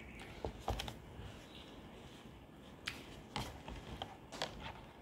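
Chopsticks clicking and scraping against a paper cup of instant ramen as noodles are picked out. Several sharp, irregular clicks.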